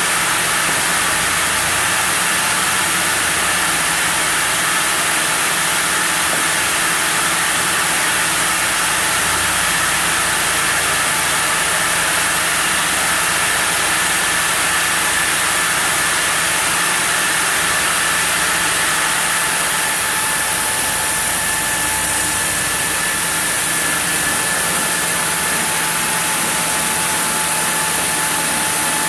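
Sawmill machinery running steadily while a block of zelkova is sawn into lumber: a loud, constant mechanical noise with a steady hum, unchanging throughout.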